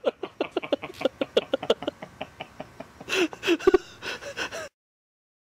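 Hearty laughter in quick breathy pulses, several a second, then a few louder voiced laughs; it cuts off abruptly near the end.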